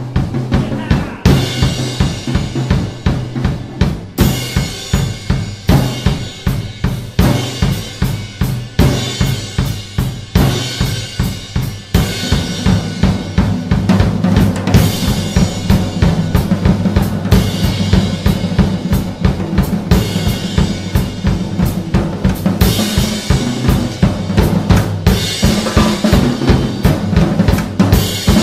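Acoustic drum kit played in a fast, steady beat, with bass drum, snare and cymbals struck in a dense even rhythm. About twelve seconds in it gets louder, with a more continuous wash of cymbals.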